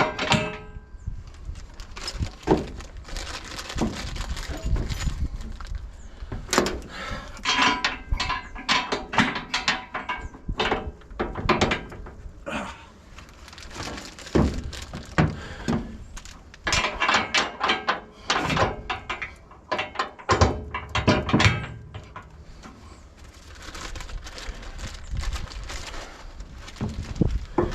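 Irregular metal clanks and thunks, some with a short ring after them, from heavy steel fifth-wheel hitch parts being moved and fitted onto the rails in a pickup bed.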